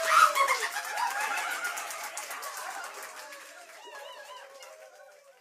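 The end of a recorded song fading out over about five seconds: overlapping high gliding cries and fine rapid clicking die away to silence.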